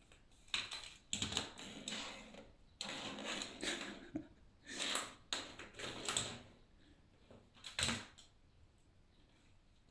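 A cat batting and clawing at a toy: irregular clattering and scuffling in short bursts, with a sharp knock near the end, then quieter.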